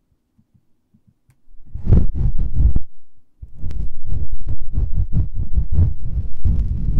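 Rapid rubbing and brushing strokes on an ASMR binaural microphone's ears, about five a second, heavy and muffled in the low end. They start about a second and a half in and pause briefly near the middle.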